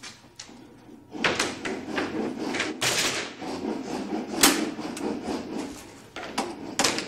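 Wooden workshop handling noises: an irregular run of knocks and clatters of wood, starting about a second in, with two louder strikes in the middle.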